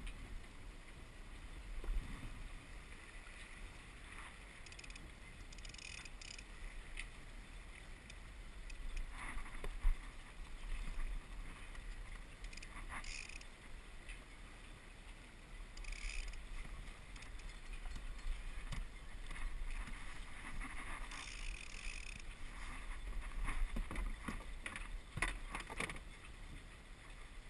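Walker Bay 10 sailing dinghy moving slowly under sail: water lapping and trickling along the hull in short splashy bursts, over a steady low rumble. Several sharp knocks near the end, typical of the fittings and lines against the boat.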